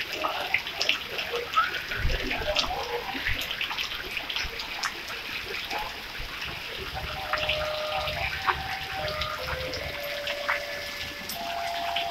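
Steady heavy rain falling on a wet road and the surrounding trees, a constant hiss scattered with small drip and splash ticks.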